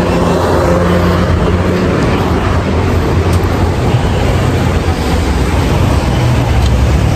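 Steady street traffic noise: cars running past, a dense even rumble with a low engine hum underneath.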